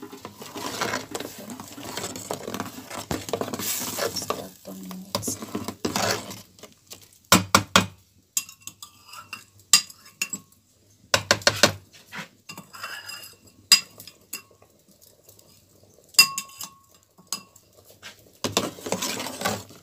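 Metal spoon stirring ogbono soup in a metal pot, scraping against the pot for the first several seconds. After that come separate sharp clinks and knocks of the spoon against the pot, each with a brief metallic ring.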